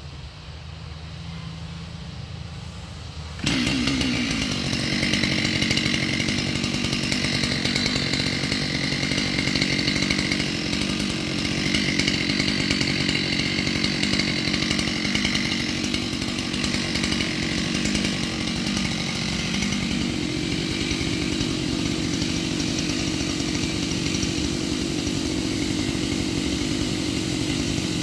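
Chainsaw running at full throttle: after a few seconds of low, steady hum, the engine jumps up sharply about three and a half seconds in, then runs loud and steady at high revs.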